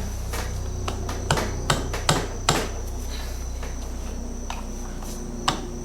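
Sharp metallic clinks and knocks from hand tools and steel parts as the splined driving dog of a Rolls-Royce Phantom III wheel hub is worked free: four about a second to two and a half seconds in, less than half a second apart, and one more near the end. A steady low hum runs underneath.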